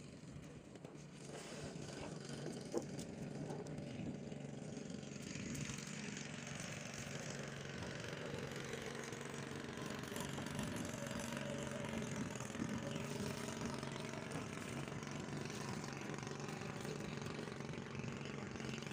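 A small engine running steadily, with a hiss that builds about five seconds in and then holds.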